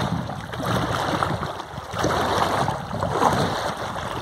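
Small lake waves lapping and splashing against the rocks at the water's edge, swelling and easing every second or so.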